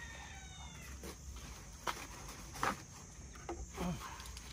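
The tail of a rooster's crow falling away in the first second, then a few short sharp rustles and taps at irregular intervals.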